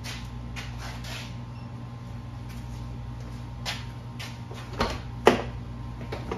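Ford Ranger pickup's driver door unlatched and swung open: a click from the handle and latch, then a louder clunk, over a steady low hum. A few faint steps come before it.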